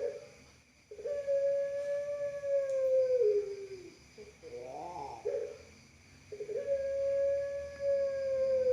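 Puter pelung dove cooing: two long drawn-out coos, each held about two seconds on one steady pitch and dropping at the end, with a short rippling note between them.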